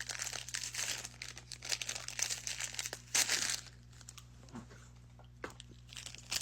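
A snack wrapper being crinkled and torn open: dense crackling rustles in bursts for a little over half the time, then a few scattered crinkles.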